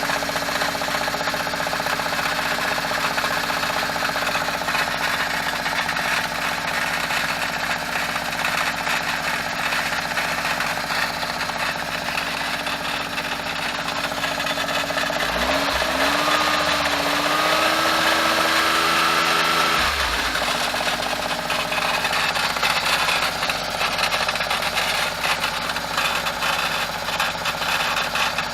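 Autozam AZ-1's small turbocharged three-cylinder engine idling with a rattle from around the gearbox, revved up briefly about halfway through and then settling back to idle. The rattle comes mostly when cold and stops when the clutch is pressed; the owner suspects the gearbox.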